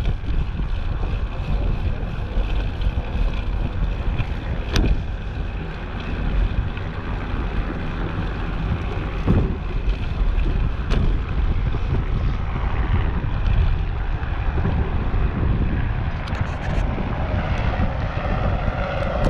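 Wind buffeting the microphone of a moving bicycle rider, a steady low rush with a few sharp clicks or knocks scattered through it.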